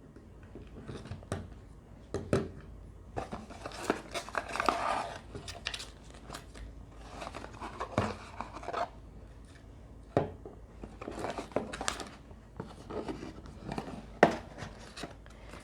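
A cardboard retail box and its packaging being opened and the contents unpacked by hand: irregular clicks, taps and rustling, with a few sharper snaps.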